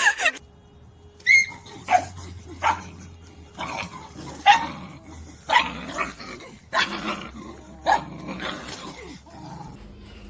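A dog barking: a string of short barks, roughly one a second, opening with a high yip.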